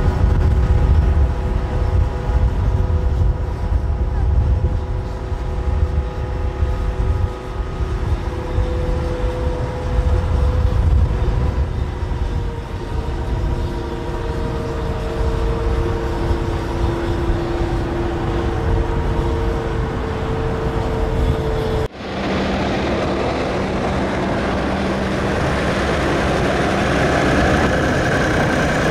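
Piston engines of Curtiss P-40 Warhawk and P-36 Hawk warbird fighters running, a deep rumble with several steady engine tones that slowly shift in pitch. About two-thirds of the way through the sound cuts abruptly to a hissier engine sound with a lower steady tone.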